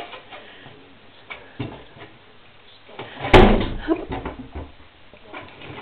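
Bumps and knocks of a man clambering on the outside of a window frame, with one heavy thud against the window and wall about three seconds in, followed by a few lighter knocks.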